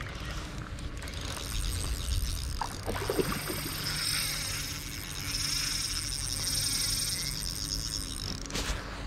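Spinning reel being cranked to retrieve a lure, its gears whirring steadily, with a low rumble of wind on the microphone and a sharp click near the end.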